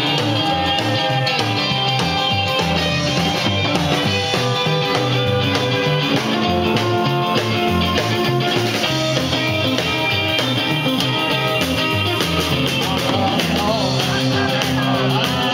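Live rock and roll band playing: electric guitars and drum kit driving a steady beat, with a male singer at the microphone.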